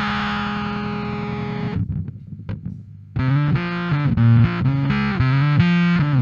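Bass guitar played through a Fender Blender fuzz pedal. A held, fuzzed note fades out, a few faint clicks follow about two seconds in, and a riff of distorted bass notes starts about three seconds in.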